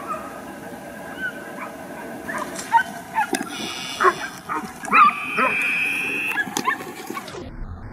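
Hunting dogs barking and yelping in short, scattered calls while working a wild boar drive, with a steady high tone held for about a second past the middle.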